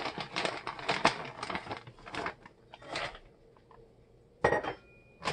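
Plastic bag of halved pecans crinkling and the nuts clattering as they are poured and handled, for about three seconds. Near the end comes one sharp clink with a short ring.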